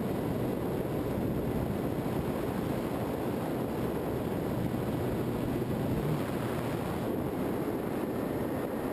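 Steady rushing airflow and electric motor and propeller noise from a Skywalker FPV model plane in flight, picked up by its onboard camera, with a faint steady hum underneath.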